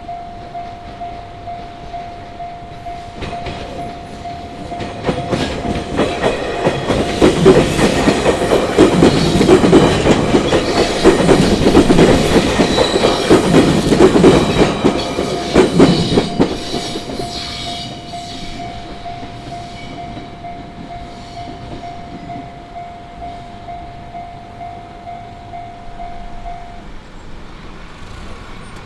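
Japanese railway level-crossing alarm ringing a steady, fast-repeating bell tone while a train passes over the crossing. The wheels clatter loudly over the rail joints for about ten seconds in the middle. The bell stops shortly before the end.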